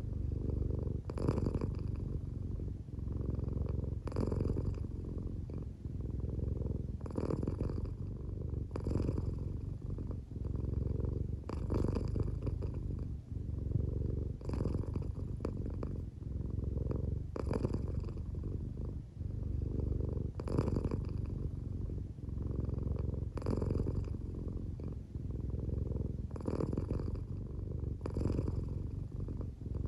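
American Shorthair cat purring steadily, the purr swelling and breaking with each breath about every three seconds. The cat is drowsy, close to sleep, and its owner thinks the purr may be partly snoring.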